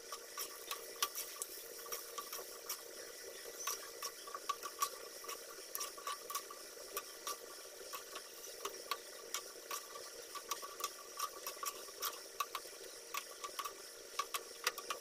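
Moong and mash dal fritters deep-frying in hot oil in a steel kadhai: a steady sizzle with many small crackling pops.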